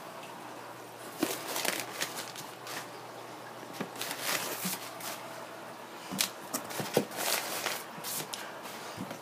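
Crumpled newspaper packing rustling and crackling in irregular handfuls as it is pulled out from around the fish bags in a styrofoam shipping box.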